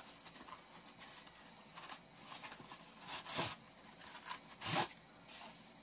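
Tripod packaging being opened and handled by hand: a series of rubbing and sliding swishes, with two louder swishes about three and a half and nearly five seconds in.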